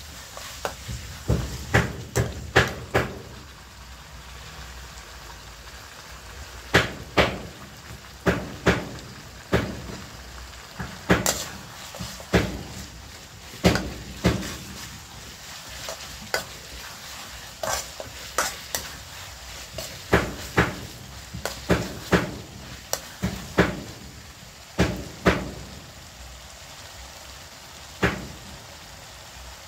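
A metal ladle stirring food frying in oil in a steel wok: clusters of sharp scrapes and knocks of the ladle against the pan over a steady sizzle, with short pauses between bouts of stirring.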